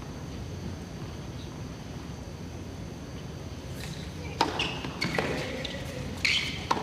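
Tennis ball struck with rackets during a point. After a few seconds of quiet crowd hush, a serve about four seconds in is followed by a few sharp return strikes.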